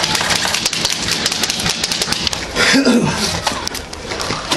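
Airsoft guns firing: a rapid, irregular clatter of sharp clicks for about two seconds, then a brief shout.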